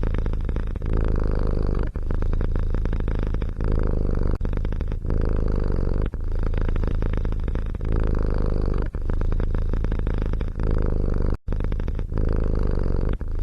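A cat purring loudly and steadily close to the microphone, a fast rumbling flutter with brief dips as it switches between breathing in and out. A sudden momentary dropout near the end.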